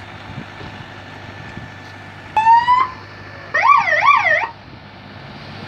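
Electronic emergency-vehicle siren chirped twice: a short rising whoop about two and a half seconds in, then a quick wavering yelp of about three swings just over a second later. Steady road and wind noise runs underneath.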